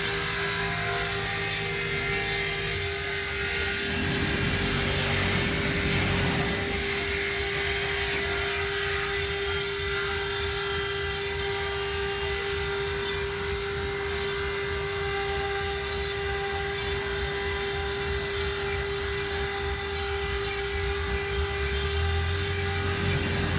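CNC stone-engraving machine's spindle running with a steady whine over a continuous hiss of cutting.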